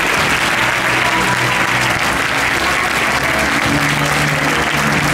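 Theatre audience applauding steadily, with music playing underneath in low held notes.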